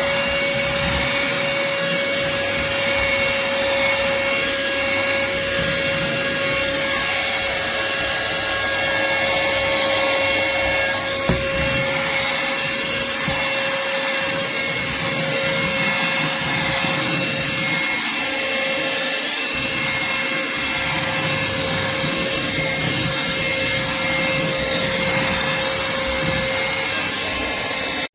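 HOMEKANE 9500 Pa cordless handheld vacuum running steadily, with a constant motor whine over the rush of air. It turns louder and hissier for a couple of seconds about nine seconds in, then stops abruptly at the end.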